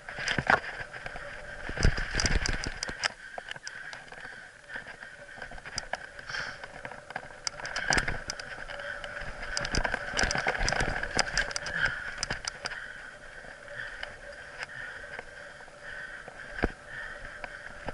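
Mountain bike running fast down a bumpy dirt singletrack: a steady rolling noise with bursts of sharp rattles and clacks as the bike jolts over bumps, thickest about two seconds in and again from about eight to twelve seconds, and a single knock near the end.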